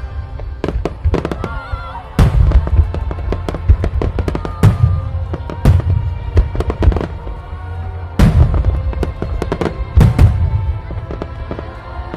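Fireworks going off: a rapid run of bangs and crackles, with heavier booms every second or two, over background music.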